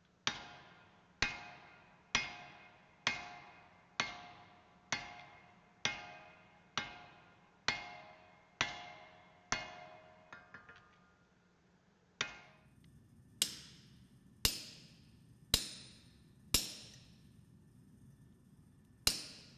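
Blacksmith's hammer striking steel on an anvil while forging, about one ringing blow a second. Two light taps come about ten seconds in, and after a short pause the blows resume with a brighter ring.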